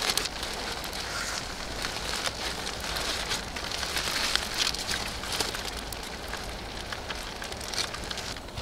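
Aluminium foil crinkling and rustling as a hot, steaming foil packet is pulled open by hand, over a steady crackling hiss.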